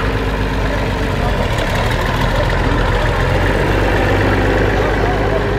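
Oliver 1755 tractor's six-cylinder engine running steadily at a low, idle-like speed as the tractor rolls slowly past.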